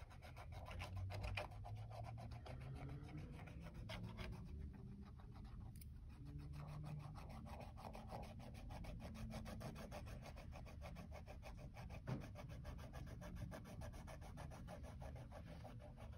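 Cotton swab scrubbing the surface of an oil painting on canvas: a faint, continuous rubbing scratch in quick, even back-and-forth strokes as diluted painting soap lifts smoke discoloration. One brief louder knock comes about three quarters of the way through.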